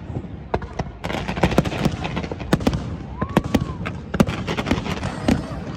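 Fireworks going off in a quick, irregular series of bangs and crackles, with a short whistling tone about three seconds in.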